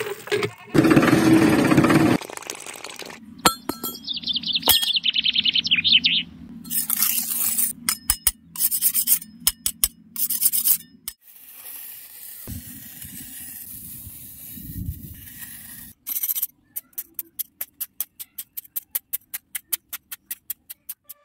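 A metal putty knife scraping and chipping at dry, cracked mud, with scrapes, clinks and many sharp clicks, including a quick run of clicks near the end.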